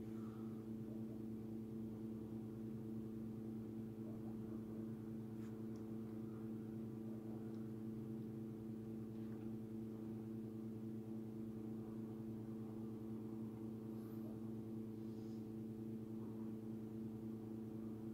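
Steady electrical hum made of several constant low tones, with a few faint ticks scattered through it.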